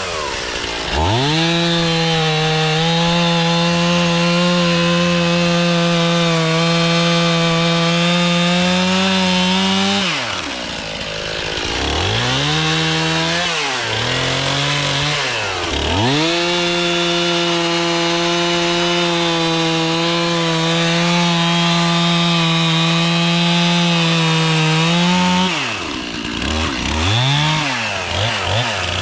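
Two-stroke chainsaw running at full throttle through two long cuts in wood, each about nine seconds. Between and after the cuts it drops back and is blipped a few times.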